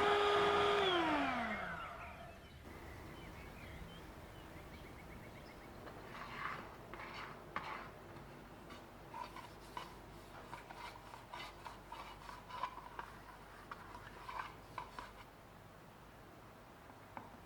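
An electric mixer's motor running steadily, then switched off, its whine sliding down in pitch and dying away within the first two seconds. After that come scattered light taps and scrapes.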